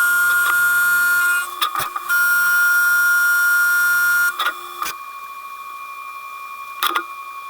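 Sped-up sound of a CNC machining center face-milling steel, at about twenty times normal speed: a loud, high, steady whine in two long stretches broken by sharp clicks. A quieter steady hum follows in the second half, with another click near the end.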